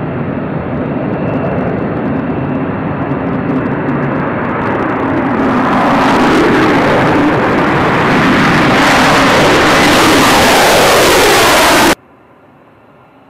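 F-35 fighter's single F135 jet engine at full afterburner through its takeoff roll and liftoff, growing steadily louder as it comes closer, with a falling pitch near the end. It cuts off suddenly about twelve seconds in, leaving the much fainter steady noise of another jet on the runway.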